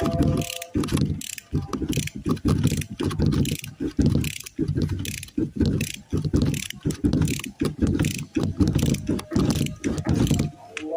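A hand ratchet clicking as it is worked back and forth in quick strokes, driving a fastener on a power steering box. There are a few brief pauses.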